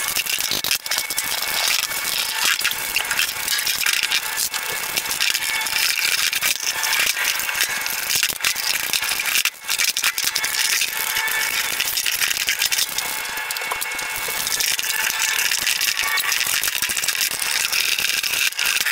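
Continuous clattering and rattling of metal parts and hand tools as small caster-wheel assemblies with pneumatic tyres are taken apart on a workbench.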